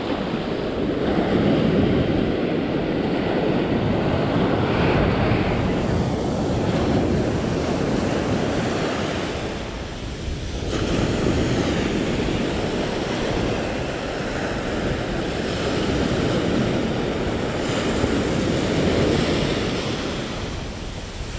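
Ocean surf breaking and washing up a sandy beach, with wind buffeting the microphone. The wash rises and falls as each wave comes in, easing briefly about halfway.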